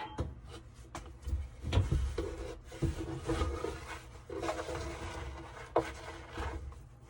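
Rubbing and scraping, with a few sharp knocks, as lint and debris are dug out by hand from a clothes dryer's lint-trap duct.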